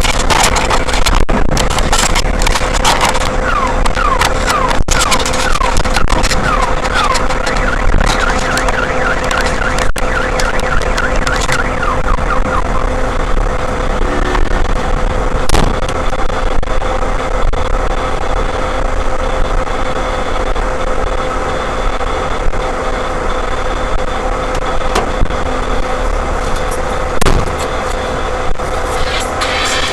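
Several car alarms sounding at once, set off by a meteor's shockwave: a fast, repeating rising chirp for about the first twelve seconds over a steady alarm tone that runs on, with a low vehicle rumble underneath.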